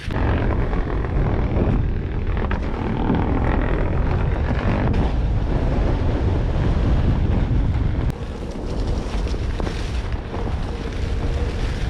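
Wind buffeting the microphone while riding an electric Onewheel board along a dirt trail. The rushing noise starts abruptly and holds steady, easing a little about eight seconds in.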